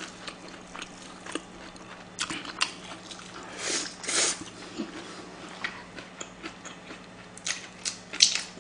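Close-miked eating: a person biting and chewing a piece of kimchi pancake, with scattered wet mouth clicks and smacks and a louder bite about four seconds in.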